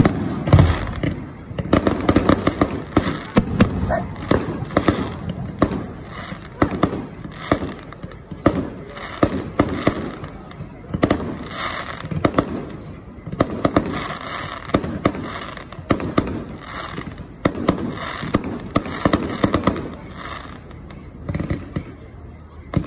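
Fireworks display: aerial shells bursting one after another with bangs and crackling, in a dense barrage that thins out near the end.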